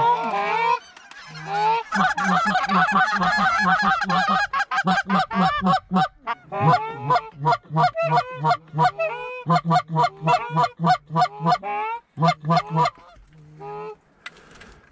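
Canada goose honks and clucks in a fast, even run of about three a second, thinning out near the end.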